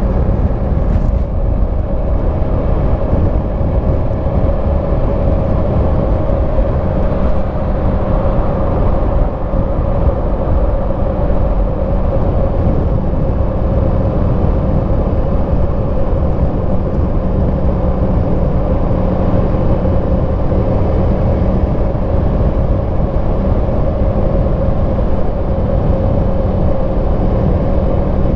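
Yamaha MT-10 SP's crossplane inline-four engine through its stock exhaust, running at a steady speed with the pitch holding constant.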